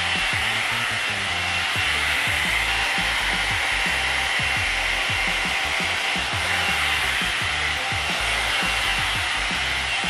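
Alan Truman hot-air blow brush running on its high heat setting: a steady rush of air from the dryer motor as the brush is drawn through hair.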